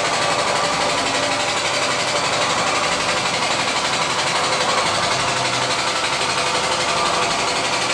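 A motor-driven machine running steadily with a constant hiss and a faint hum, unchanging throughout.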